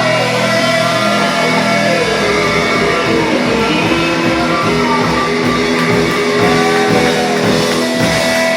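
Rock band playing live: electric guitar over a drum kit, the guitar notes gliding down and back up.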